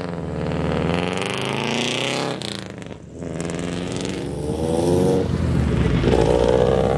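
Cars driving past one after another, their engines revving and rising in pitch as they accelerate. There is a brief lull about three seconds in, and the loudest pass is near the end.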